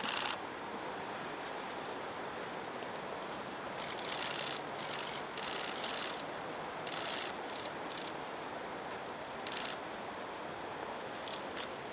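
Press camera shutters firing in short rapid bursts, several times, over a steady outdoor hiss.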